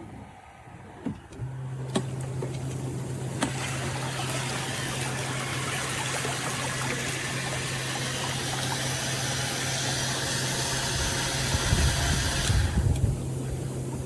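Rechargeable handheld spa vacuum's small electric motor humming steadily, with a water rush that starts a few seconds in and cuts off suddenly near the end. A couple of sharp clicks come near the start and low thumps near the end.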